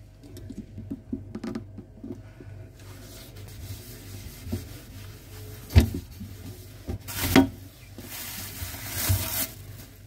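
A sponge wiping a refrigerator's glass shelf with soft rubbing strokes, with two sharp knocks about six and seven and a half seconds in. Near the end a plastic bag rustles.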